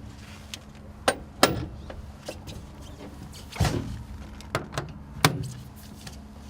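Several sharp clicks and knocks from parts being handled at the excavator's engine compartment, such as the oil fill cap or access cover, over a steady low hum.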